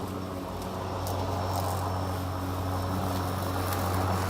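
Greenworks PRO 80V cordless electric lawn mower running, its motor and blade making a steady hum while it cuts thick grass, growing slightly louder near the end.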